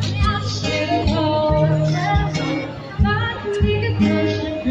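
Background music: a song with singing over a steady beat and a sustained bass line.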